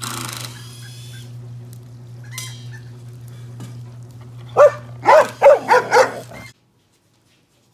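Belgian Malinois barking five times in quick succession about halfway through, over a steady low hum.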